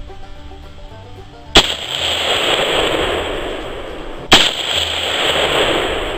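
Two rifle shots from a .223 AR-style rifle, fired about three seconds apart. Each is a sharp crack followed by a long echo that dies away over a couple of seconds.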